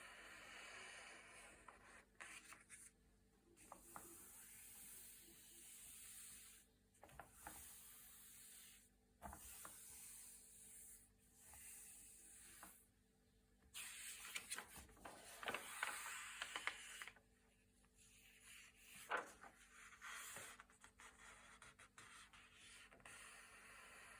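Quiet turning of thick, glossy pages: repeated paper rustles and swishes with short pauses between them, and brief sharp snaps as the stiff pages flip over.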